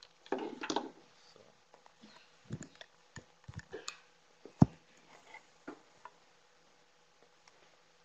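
Handling noise at the lectern microphone during a speaker changeover. A short burst of rustling just after the start is followed by scattered knocks and clicks, with one sharp thump about four and a half seconds in.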